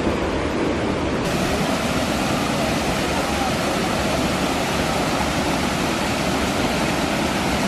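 Steady rush of water from a small waterfall and cascade pouring into a stream pool.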